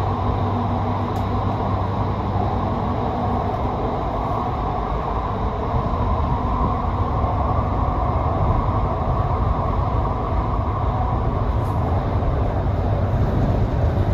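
Steady running noise of a vehicle in motion: an even rumble with a low hum underneath, growing slightly louder about halfway through.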